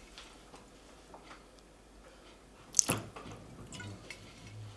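Faint drips and small ticks, with one sharp knock about three seconds in.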